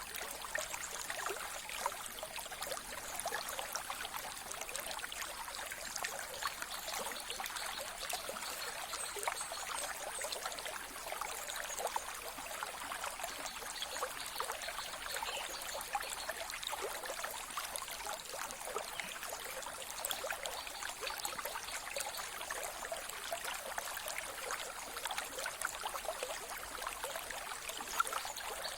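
Mountain river flowing: a steady babbling trickle of water, light and hissy rather than a deep roar, with many small splashes and no pause.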